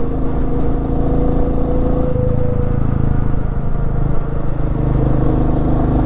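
Royal Enfield Meteor 350's single-cylinder engine running steadily while riding at an even speed.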